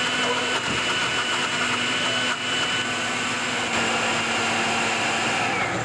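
Stainless-steel blender motor running steadily under load as it blends frozen bananas and apple juice into a smoothie. It is switched off just before the end, its pitch falling as it winds down.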